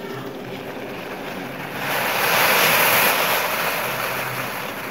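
Spiced water at a rolling boil in a steel saucepan on a gas stove: a steady bubbling hiss that swells louder about two seconds in, then slowly eases off, with tea powder floating on the surface.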